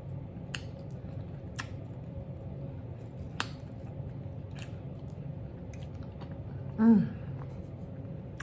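A person chewing food with the mouth closed, with scattered soft clicks and a short voiced 'mm' about seven seconds in.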